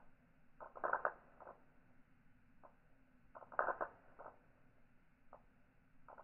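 Steel balls of a seven-ball Newton's cradle clacking together: two quick runs of several clicks about two and a half seconds apart, with fainter single clicks between.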